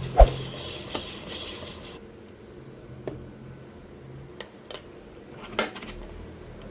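Coffee equipment being handled on a counter: one heavy knock near the start, then a few light clicks and a short metal-and-ceramic clatter near the end.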